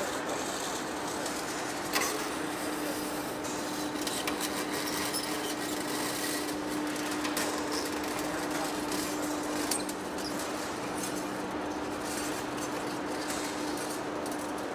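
Heavy-duty lathe turning a large steel rotor shaft with a cutting tool against the metal: a steady machine noise with a faint held whine and scraping hiss, and a sharp click about two seconds in.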